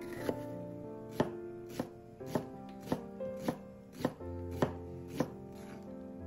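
Kitchen knife mincing an onion on a wooden cutting board: about nine sharp knocks, one every half second or so, over background music.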